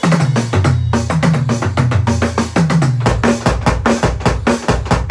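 Drum-driven music: a drum kit playing a busy beat of kick and snare hits, over deep bass notes that slide down in pitch several times in the first three seconds or so.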